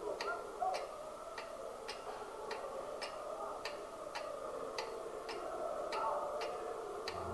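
Steady mechanical ticking, about two ticks a second, over a faint steady whir.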